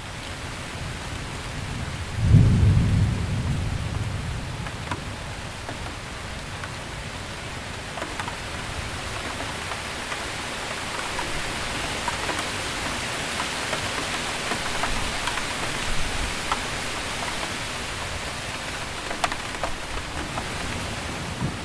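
Heavy city rain falling steadily, with a thunderclap about two seconds in that rumbles and fades over a couple of seconds. Scattered sharp drips and splashes tick through the downpour.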